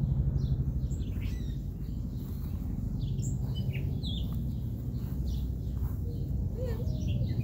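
Wild birds chirping and calling, many short high chirps and quick whistled sweeps, over a steady low rumble.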